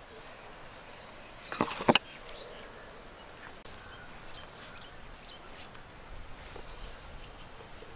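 Quiet outdoor background with faint bird chirps, and one short, louder noise a little under two seconds in.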